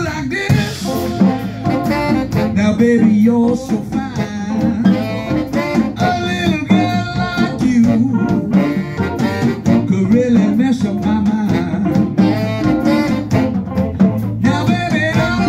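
Live blues band playing an instrumental break, a saxophone taking the lead over electric guitars, bass and drums.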